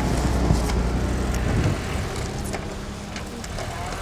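Engine of a UAZ Patriot off-roader driving through snow, its running sound easing off about two seconds in.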